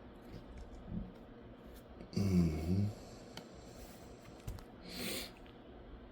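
Quiet room tone with a man's short, low wordless hum about two seconds in, then a brief breath near the end.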